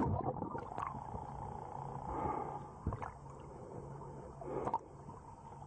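Muffled underwater sound: gurgling and rushing bubbles, with a few sharp knocks over a steady dull hum.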